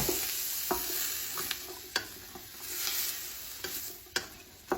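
Chopped celery, carrots, onion and garlic sizzling in melted butter in a soup pot as a spoon stirs them, with several sharp knocks and scrapes of the spoon against the pot. The sizzle eases a little in the second half.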